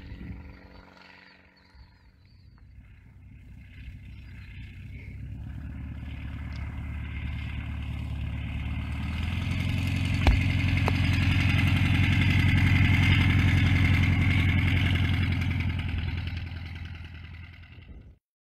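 A light single-engine propeller plane's engine, passing along the runway: its steady drone grows louder over about ten seconds, peaks, then fades as it goes by. One sharp click comes about halfway through.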